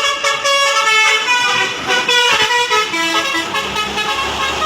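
Bus 'telolet basuri' musical air horn playing a quick tune of changing notes, with the low rumble of an engine coming up about three and a half seconds in.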